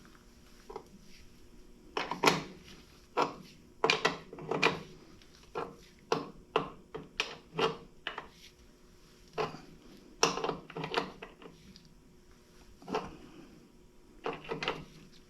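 Irregular knocks and clanks of metal tools and parts being handled at a workbench, about twenty sharp hits spread unevenly with a few short pauses.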